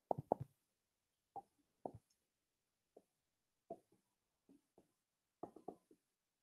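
Faint, soft taps and knocks of a stylus on its writing surface during handwriting: about a dozen short knocks at irregular intervals, several in quick succession at the start and a cluster near the end.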